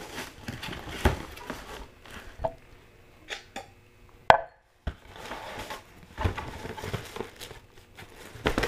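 Cardboard shoebox being opened by hand: scattered knocks and scrapes of the lid, the loudest a sharp knock about four seconds in, then rustling of the plastic bag wrapping the shoes inside.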